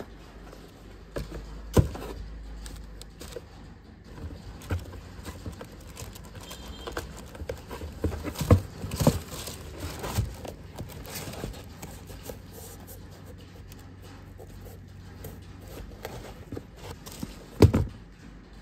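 Handling of a football boot and its packaging: tissue paper crinkling and rustling against the cardboard box, with scattered sharp knocks as the boot is moved, the loudest near the end.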